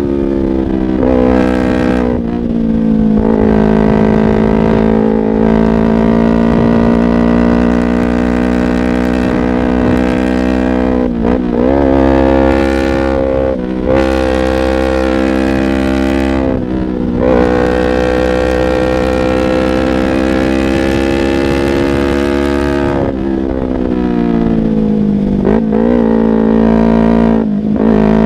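Yamaha YZF-R25 parallel-twin engine breathing through a Proliner aftermarket exhaust while riding, holding a steady note for long stretches. The engine note briefly dips and climbs again several times around the middle and near the end.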